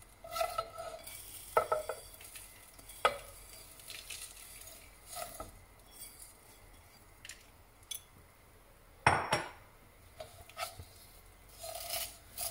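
Fine dry vermicelli strands being tipped into a non-stick pan of ghee and pushed about by hand and then with a plastic spatula: scattered brittle rustles, scrapes and light knocks against the pan, the loudest about nine seconds in.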